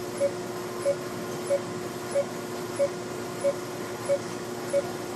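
A medical laser beeping in short, even tones at one pitch, about one and a half a second, eight times, over a steady machine hum: the pulse tone of the laser firing in repeat mode as the treatment starts.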